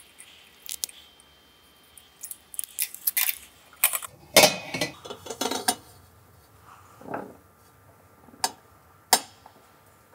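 A metal pipe being handled and set on a pipe cutter's support rollers: scattered metallic clinks and knocks, with a loud cluster about four seconds in and two sharp clicks near the end. The cutting machine is not running.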